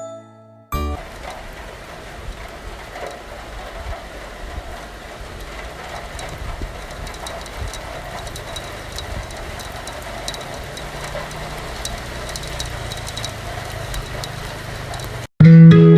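Steady low rumbling background noise with faint scattered clicks and rattles. It starts abruptly about a second in and cuts off suddenly just before the end.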